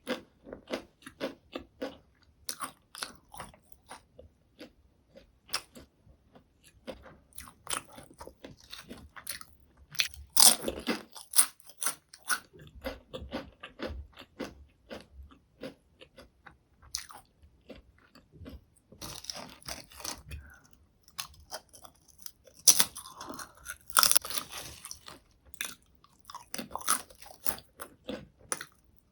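Potato chips being bitten and chewed close to the microphone: a run of irregular crisp crunches with louder bites every several seconds and short pauses between mouthfuls.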